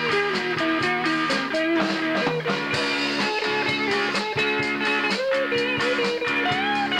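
Live rock band playing: electric guitars over a drum kit, with a guitar line of sliding, held notes above a steady beat.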